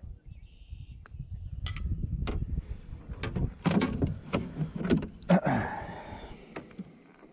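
Knocks and scrapes of a hard plastic fish-measuring board being handled in a plastic kayak, over low rumbling handling noise. The knocks come in a quick run in the second half, the loudest followed by about a second of scraping.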